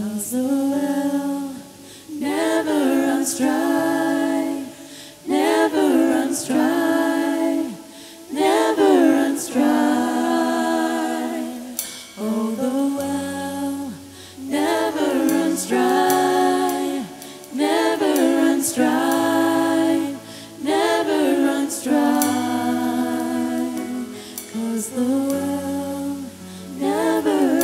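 Worship music: slow sung phrases over low held accompanying chords.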